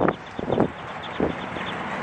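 Outdoor background noise with wind on the microphone, and a few faint distant voices.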